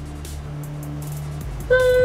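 Background music: a quiet stretch of low held notes, then a sung voice line comes in loudly near the end.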